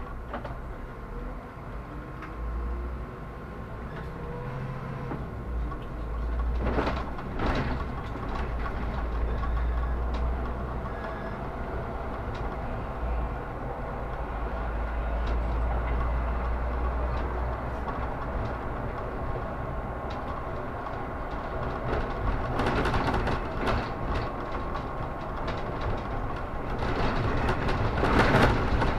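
Solaris Urbino 18 articulated city bus running, with a steady low rumble and a rising whine a few seconds in. Two sharp knocks come around seven seconds in, and louder bursts of noise come near the end.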